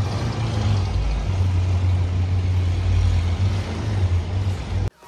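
City street traffic: a steady low rumble of vehicle engines and road noise, cutting off abruptly near the end.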